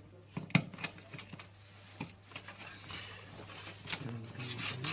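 Clicks, taps and rustling of hands handling cables and connectors on a PC case, with a sharp click about half a second in.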